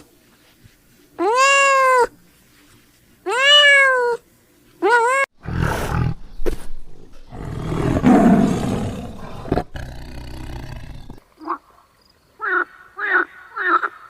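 A cat meows three times, long rising-and-falling meows with the last one short. Then comes a harsh, noisy growl or roar lasting about six seconds, followed by a quick run of short high calls near the end.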